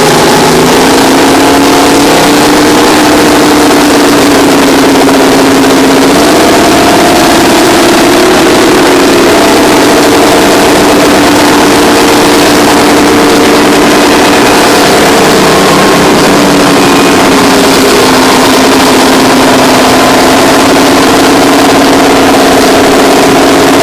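The Terex 82-80 bulldozer's twin Detroit Diesel 6-71N two-stroke engines running loud and steady under load. The engine note shifts in pitch several times as the throttle and load change.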